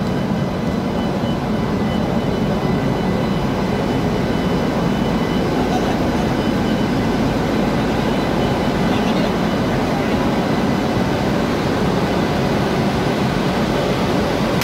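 WAP-7 electric locomotive running, a loud steady rushing noise with a few thin high whining tones above it.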